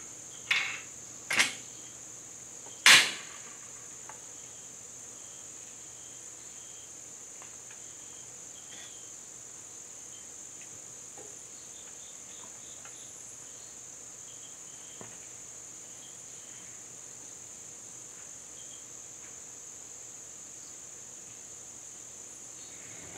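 Steady high-pitched insect chorus, with a few sharp clicks in the first three seconds; the third click, about three seconds in, is the loudest.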